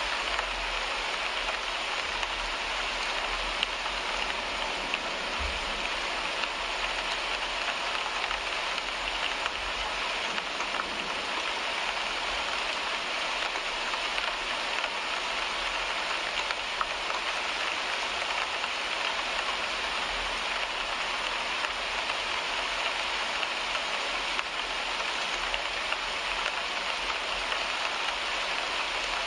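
Rain falling on a car windshield: a steady hiss with occasional louder single drop hits, and a low rumble that comes and goes underneath.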